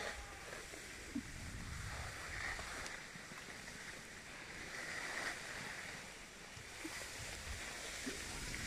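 Cross-country skis sliding over snow, a soft swishing that swells with each glide, with a few light clicks of poles or ski edges.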